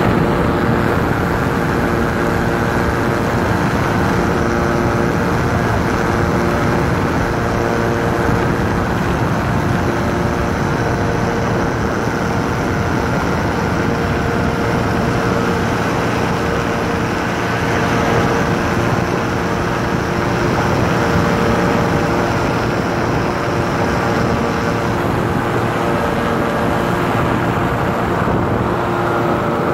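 Six Chuter Paragon powered parachute's engine and pusher propeller running steadily in level flight, heard from the pilot's seat.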